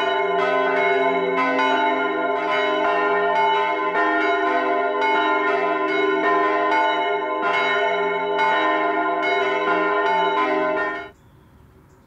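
Peal of three swinging bronze church bells, two from the 13th century and one from the Renaissance, tuned F, C and F-sharp and hung in a historic wooden bell frame. The bells strike in overlapping, irregular strokes with long ringing tones. The ringing cuts off about eleven seconds in.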